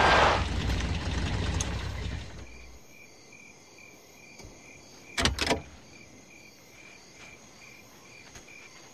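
Dramatic score fading out over the first couple of seconds, leaving crickets chirping steadily at about two chirps a second. Two sharp knocks come close together about halfway through.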